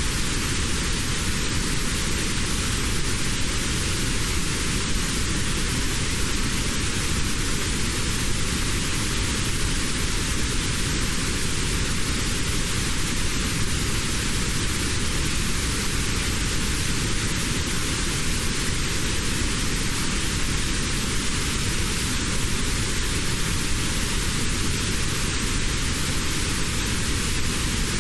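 Steady, unchanging hiss of synthetic noise with a narrow band in the middle range cut out: notched noise played as a tinnitus-relief sound.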